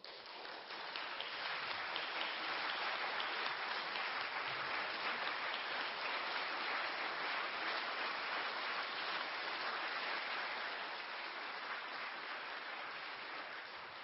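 Audience applauding at the end of the piece, starting suddenly, building over about a second, then steady, easing slightly near the end.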